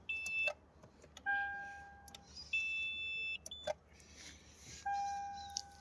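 Toyota Land Cruiser's electronic warning beeps with no engine running. A lower chime sounds twice and fades out each time, two shorter, higher beeps come between them, and a few sharp clicks are heard in the gaps.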